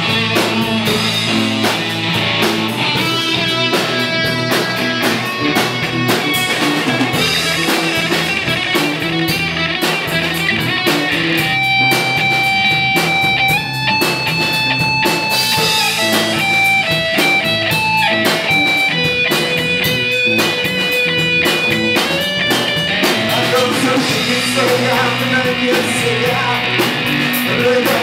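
Instrumental break in a rock song: guitar over a drum kit, with long held lead notes through the middle.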